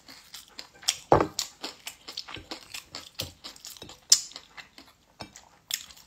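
Close-up eating sounds: irregular clicks and smacks of someone chewing a mouthful of rice, with occasional cutlery clinks on a plate and a couple of louder knocks.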